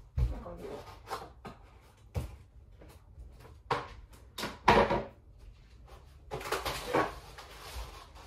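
Kitchen handling noises at the counter: a string of irregular knocks and clatters, the loudest just under five seconds in, with a short hiss around six to seven seconds.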